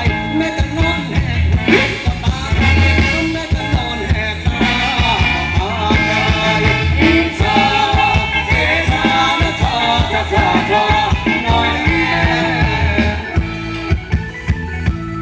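Live Thai ramwong dance band playing, a singer's voice over a steady drum beat.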